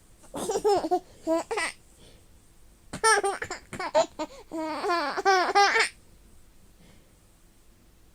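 A nine-month-old baby laughing in quick, high-pitched pulses: a short bout, then a longer one about three seconds in.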